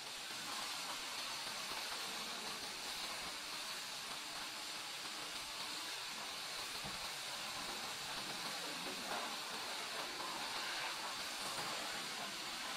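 Steady hiss of a high-pressure washer spraying water in the wash bay.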